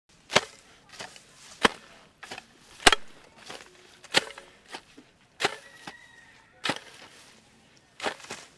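Hoe blades chopping into grassy soil: a string of sharp strikes, roughly one every second, some louder than others.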